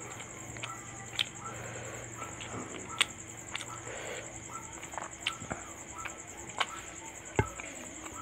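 Eating sounds: chewing and lip smacks with sharp clicks every second or so, over a steady high insect trill.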